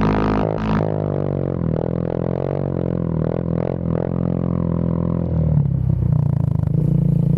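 Quad bike (ATV) engine running, its pitch rising and falling, then a louder, rougher running from about five seconds in.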